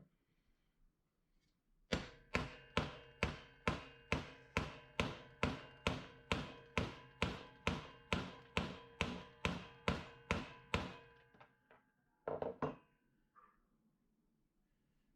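A hammer striking metal with steady blows, a little over two a second for about nine seconds, each ringing briefly. The blows weaken toward the end, and two quicker knocks follow about a second later.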